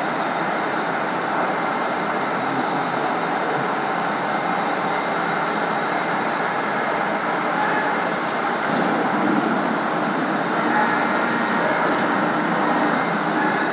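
CNC vertical machining centre milling at high speed: a steady, dense cutting noise with a high tone that comes and goes.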